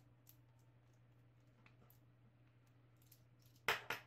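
Faint sparse clicks as a small precision screwdriver turns out the battery-cover screw on the back of a multimeter's case, then two loud clacks in quick succession near the end.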